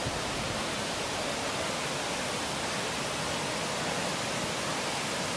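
Steady rushing of a waterfall cascading over rocks, an even hiss with no breaks.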